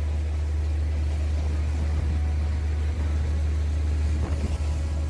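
Strong wind buffeting the microphone in a steady, loud low rumble, with waves splashing against the rocks of the dike faintly underneath.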